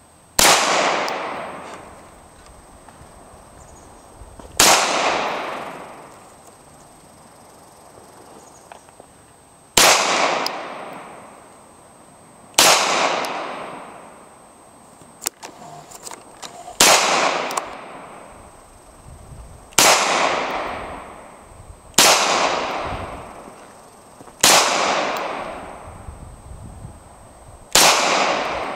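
Beretta semi-automatic pistol fired nine times in slow, deliberate single shots a few seconds apart. Each crack rings out and echoes away over about two seconds.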